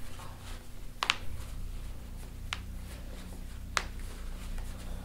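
Three sharp single clicks about a second apart, the first the loudest, while a patient's ankle is pulled in chiropractic leg traction, over a low steady hum.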